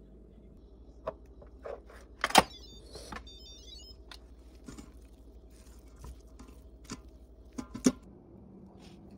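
An Instant Pot electric pressure cooker being opened and handled: a run of clicks and knocks, the loudest a sharp clack about two and a half seconds in as the lid comes off, then a few more knocks near the end as a utensil goes into the pot. Under it a low steady hum stops near the end.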